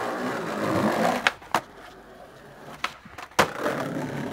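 Skateboard wheels rolling over tiled paving, broken by four sharp clacks of the board: two close together just over a second in, two more around three seconds in, the last the loudest. Then the wheels roll on.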